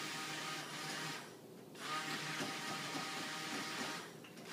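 Electric immersion blender running in a pot of butternut soup, puréeing it with a steady motor hum. It stops briefly about a second and a half in, then runs again and eases off near the end.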